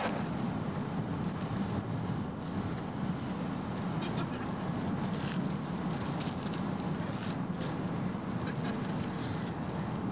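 Steady low rumble of a car's engine and road noise, heard from inside the cabin, with a few faint crackles.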